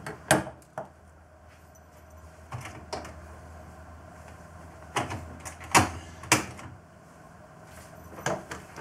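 Scattered sharp knocks and clacks from objects being handled at a wooden workbench, the first as a soldering iron is set down on a metal sheet, the loudest two about six seconds in. A low steady hum runs underneath.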